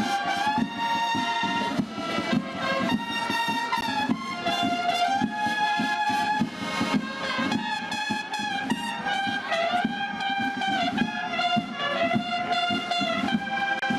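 Cornet and drum band playing a processional march: cornets in unison hold a melody of long notes over a steady drum beat.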